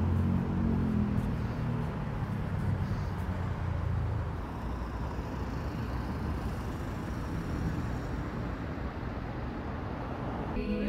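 Steady outdoor road-traffic noise, with a low engine hum in the first few seconds.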